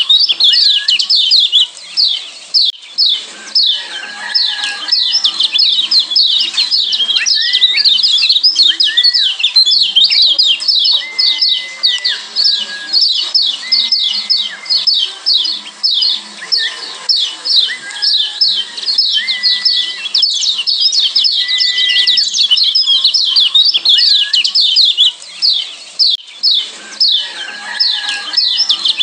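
Kecial kuning (Lombok yellow white-eye) calling: a fast, unbroken stream of high chirps, several a second, with short lower whistled notes between them. These are the 'ciak' calls used as masteran training audio for captive white-eyes.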